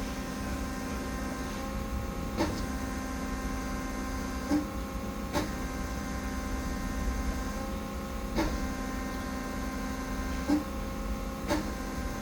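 Haas SL30T CNC lathe standing powered up, giving off a steady machine hum made of several held tones over a low rumble, with a sharp click every second or few.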